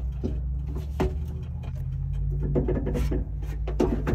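The Yanmar three-cylinder diesel engine of a John Deere 1023E compact tractor idling steadily, heard from inside the cab. Sharp clicks and knocks come from the cab controls and levers being handled, about a second in and again near the end.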